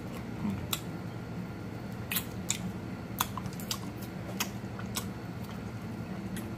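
Close-up mouth sounds of someone gnawing and sucking on a turkey leg bone: about ten sharp, wet clicks and smacks at irregular intervals. A steady low hum runs underneath.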